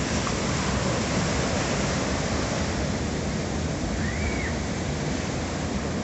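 Surf breaking and washing up a sandy beach: a steady, dense rushing of whitewater from rough sea waves.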